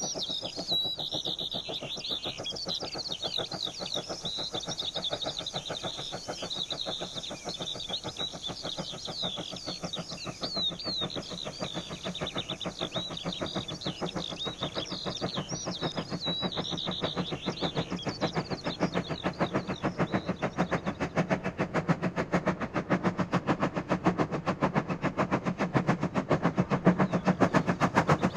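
Steam-hauled heavy freight train, from a 1950s archive recording, approaching with a rapid, regular clatter that grows louder toward the end. Birds sing over it for the first half or so.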